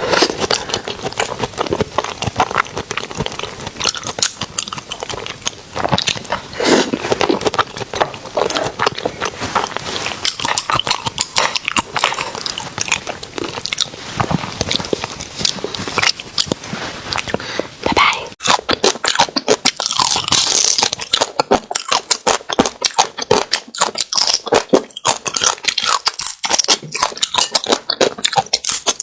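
A person biting and chewing food close to the microphone, a continuous run of crisp crunches; from about two-thirds of the way in the crunches come sharper and more spaced out.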